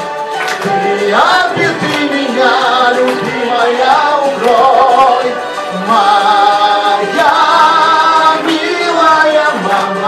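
A man singing a song into a microphone over a karaoke backing track, holding long notes.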